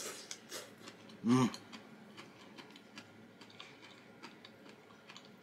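A man chewing food close to the microphone: a scatter of small, irregular mouth clicks, with a short hummed 'mm' about a second in.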